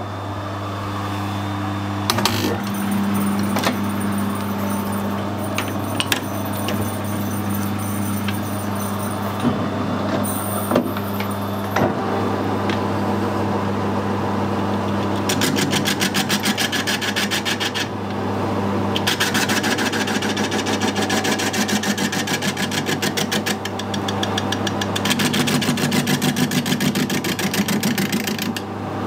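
Metal lathe running with an old cast valve body spinning in its four-jaw chuck, a steady motor and gearbox hum. In three stretches from about halfway on, a rapid rhythmic clatter comes in, about ten beats a second, as the tool facing the casting's gasket face makes an interrupted cut.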